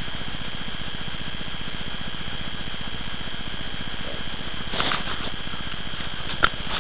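Steady hiss with a faint high whine, from a low-quality phone camera's recording. A few brief rustles come about five seconds in, and a sharp click near the end as the camera is swung around.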